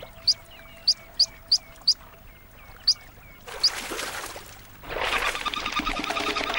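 Ducklings peeping: about seven short, high, rising peeps spread over the first four seconds. From about five seconds in, loud splashing and rushing water as a duck charges across the surface.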